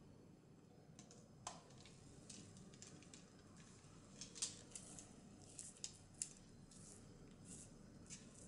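Faint, irregular light clicks and taps of kitchen utensils and bakeware being handled, clustering about four to six seconds in.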